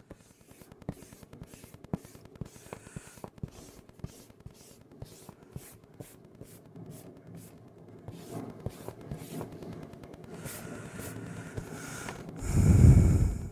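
A tissue rubbed back and forth over drawing paper on a clipboard in quick, short strokes. Near the end comes a louder low rumble of about a second, like the clipboard being handled.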